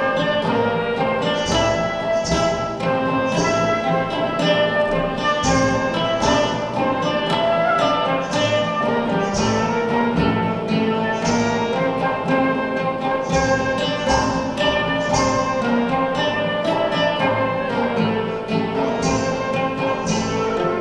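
Live acoustic folk ensemble playing a medley of Greek tunes: a flute carries the melody over a plucked lute-type string instrument, with frame drums keeping a steady beat of about two strikes a second.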